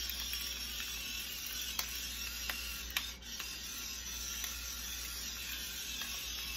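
Pepper mill grinding pepper: a steady grinding hiss with a few light clicks.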